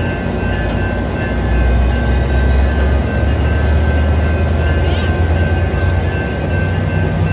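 Metra commuter train rolling past: the F59PHI diesel locomotive's engine and the bilevel cars' wheels on the rails give a steady low rumble that swells about a second and a half in. Grade-crossing bells ring as steady high tones above it.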